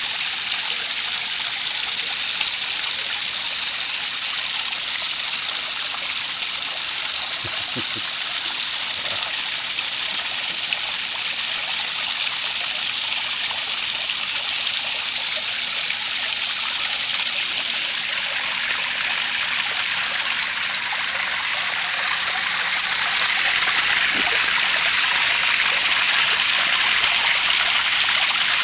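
Water rushing and swirling steadily in a vortex. It dips briefly about 18 seconds in and swells a little around 24 seconds.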